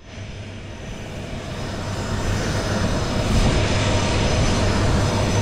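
Aircraft engine running close by on an airport ramp: a steady rumble that swells over the first couple of seconds and then holds.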